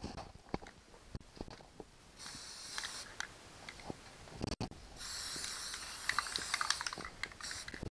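Aerosol spray can spraying primer in two bursts of hiss, a short one about two seconds in and a longer one from about five seconds to near the end, with scattered light clicks between.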